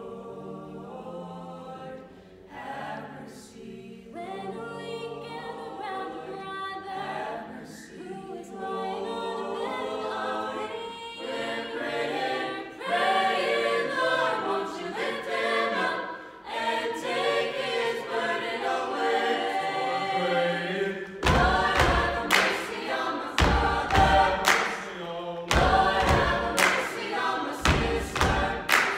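Mixed-voice a cappella vocal ensemble singing in harmony, growing louder. About 21 seconds in, sharp percussive beats join in a steady rhythm, two at a time about every two seconds.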